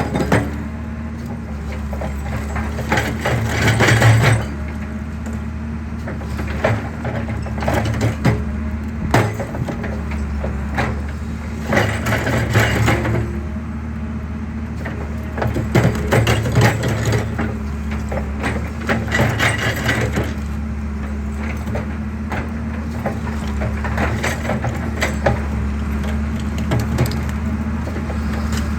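Excavator crushing a concrete pillar: the diesel engine runs steadily under loud bursts of cracking and crunching concrete every few seconds, the loudest about four seconds in.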